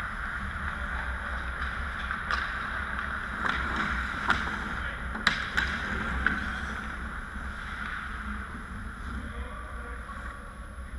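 Ice hockey on an indoor rink: skate blades scraping the ice, and a run of sharp clacks of sticks and puck between about two and six seconds in, over a steady low hum.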